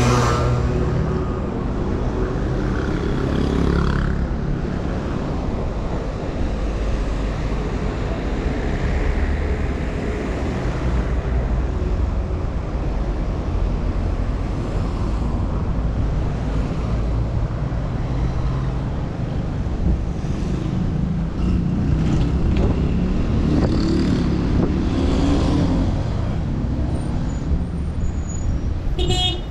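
Road traffic: cars driving past on the adjacent street, a steady low rumble that swells a few times as vehicles pass.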